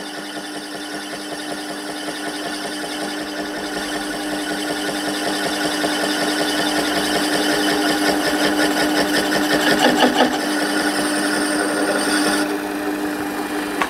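Small metal lathe turning a flywheel disc while the cutting tool takes a cut across its rim, with a steady hum and a fast, regular pulsing in the cutting noise. The pulsing comes from one remaining flat spot on the rim, which makes the cut still slightly interrupted. The cutting noise grows a little louder toward about ten seconds in, and its hiss drops away shortly before the end.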